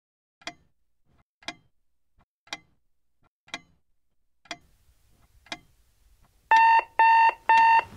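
A clock ticking slowly, six ticks a second apart, then near the end an electronic alarm clock starts beeping, a high beep repeating about twice a second: a wake-up alarm set for 7 in the morning.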